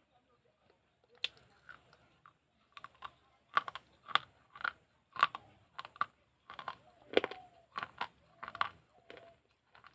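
Teeth biting and crunching a broken piece of clay matki (earthen pot): one sharp crack about a second in, then a run of hard, gritty crunches, about two a second.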